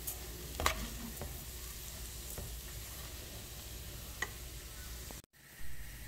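Raw rice sizzling as it is sautéed in a pan, stirred with a metal spoon that clicks lightly against the pan a couple of times.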